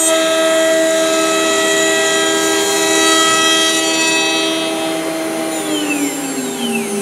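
SINMIC SC1325 ATC CNC wood router's spindle running with a steady high whine. About five and a half seconds in, the pitch starts to fall as the spindle slows.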